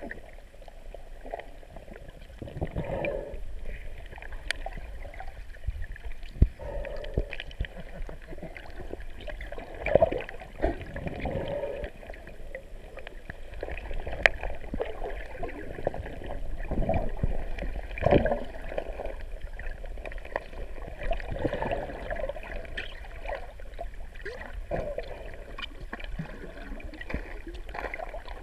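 Muffled underwater sound through a waterproof camera housing: swimmers stirring the water, with gurgling swells and a few sharp knocks scattered through.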